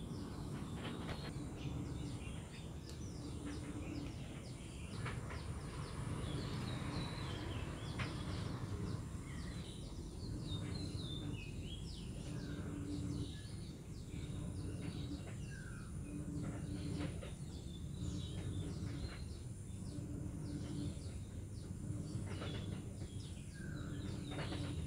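Small birds chirping and twittering in short calls and falling notes, over a steady low background rumble. A short low note repeats every second or two, and a faint steady high whine runs underneath.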